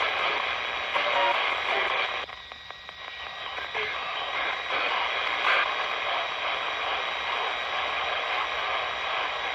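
RadioShack 12-587 portable radio sweeping the AM band as a ghost box: steady static hiss broken by brief chopped fragments of broadcast voices as it skips from station to station. The static drops away for about a second, between two and three seconds in. The reception is rough, which the user blames on interference from the LED lantern beside it.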